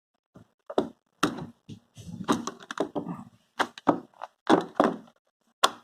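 Heavy-duty desk stapler being handled and set, giving a string of short clicks and knocks, about seven in all, with a sharp click near the end.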